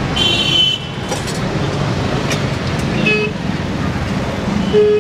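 Steady street traffic noise with vehicle horns beeping: a short higher toot in the first second, then two short lower beeps, about three seconds in and at the end.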